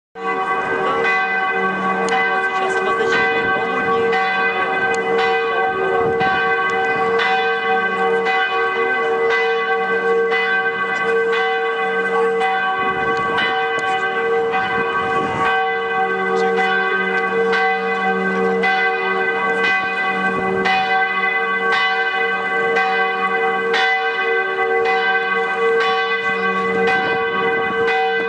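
The bells of Dresden's Hofkirche cathedral ringing in a full peal: several bells swing and strike over and over, their strokes overlapping into a continuous clangour over a steady humming tone.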